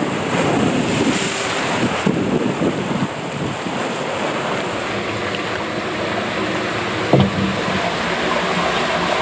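Water rushing and splashing on a waterslide, with wind buffeting the microphone, and a single knock about seven seconds in.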